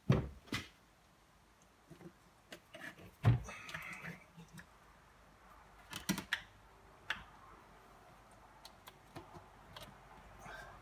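A few sharp knocks and light taps and clicks as a booster pump is handled and held against a drywall wall to mark its screw holes. The loudest knocks come right at the start and about three seconds in.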